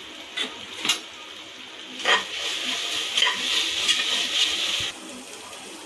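Onion and tomato sizzling in oil in an aluminium pressure cooker as a perforated metal ladle stirs in the spice powder, the sizzle growing louder from about two seconds in and stopping just before the end. A few sharp clicks of the ladle against the pot.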